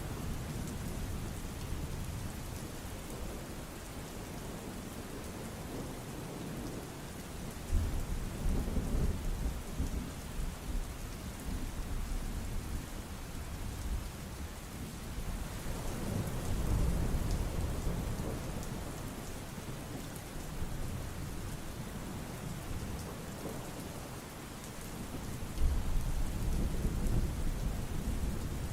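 Steady crackling noise from a background ambience track, with deep rumbles that swell and fade three times.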